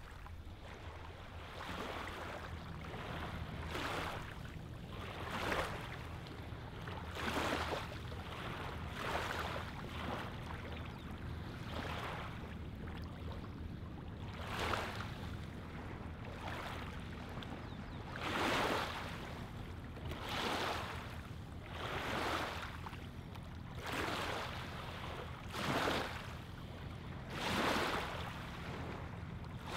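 Small lake waves lapping onto a pebble-and-gravel shoreline, a soft wash every two seconds or so, some louder than others, over a steady low rumble.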